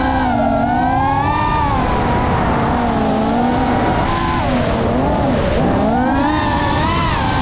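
FPV racing quadcopter's brushless motors and propellers whining, the pitch rising and falling as the throttle changes through dives and turns. The pitch drops about four seconds in, then climbs again near the end.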